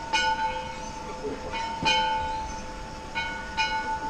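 Metal struck three times in a blacksmith shop, sharp clanks under two seconds apart, each setting off a bright metallic ring whose steady tone carries on between the strikes.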